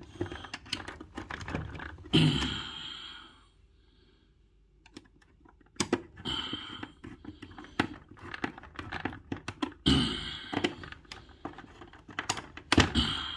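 A screwdriver clicking and scraping irregularly against the screws of a dishwasher's terminal strip as the wire connections are tightened, with a few louder scraping bursts and a brief near-silent pause about four seconds in.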